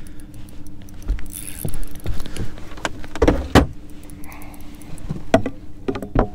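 Knocks and thumps of someone moving about on a fishing boat's deck while playing a fish on a spinning rod, loudest around the middle, over a steady low hum.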